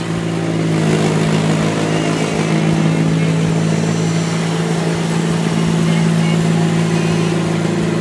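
Green Machine 525 compact street sweeper running close by, its engine and fan giving a steady drone over the scrub of its gutter brush on brick paving; it grows a little louder about a second in.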